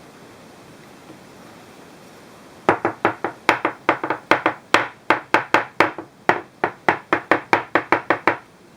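A rapid, even series of sharp knocks on something hard, about four a second, starting a few seconds in and stopping suddenly near the end.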